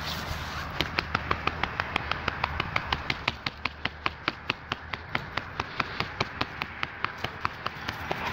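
Rapid, even clicking: a long run of sharp clicks at about six a second, beginning about a second in.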